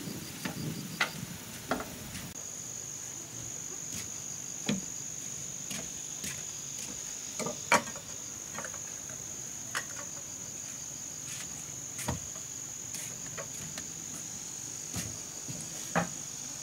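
Insects calling with a steady high trill that sets in about two seconds in, over a dozen or so irregular sharp knocks and taps, the loudest near the middle.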